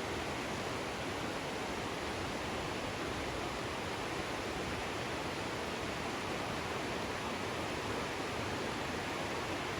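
Creek rushing steadily, running high with a lot of water.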